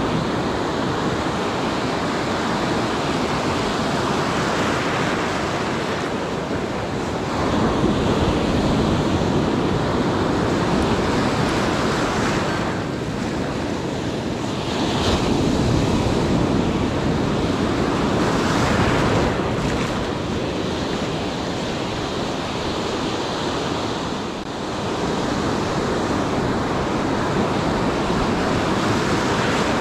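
Pacific surf washing onto a beach, a steady rush that swells louder about eight seconds in and again from about fifteen to nineteen seconds in, with wind buffeting the microphone.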